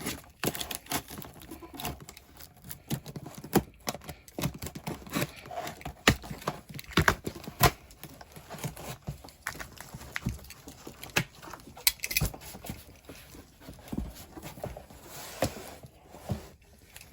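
Hands unpacking a shipping box: irregular taps, knocks and rustling of packing material as items are lifted and moved inside it.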